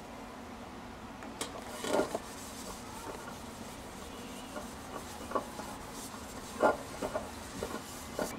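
A white cloth rubbing and wiping inside a stainless steel pot over its textured bottom, to check for leftover polishing compound. A few brief clicks break in, the loudest about two-thirds of the way through.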